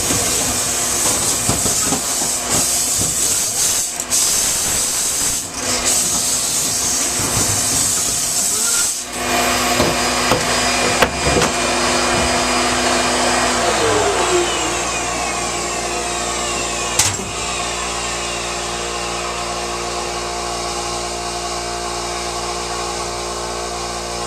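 Dryer vent cleaning: loud rushing air and a motor running, with knocks and scraping in the first half. Later the sound settles into a steady machine hum, with a falling whine partway through and one sharp knock near the end.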